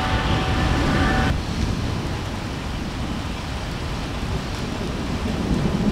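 Steady rain and wind noise with a low rumble of thunder building near the end. In the first second a steady droning sound of several held tones runs, then cuts off abruptly.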